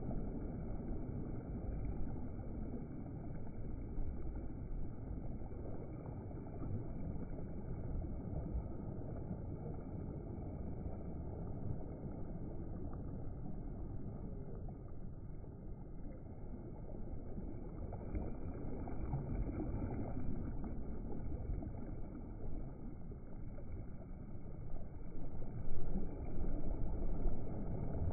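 Steady rushing of wind and water while windsurfing, heaviest in the low end, with a few louder gusts near the end.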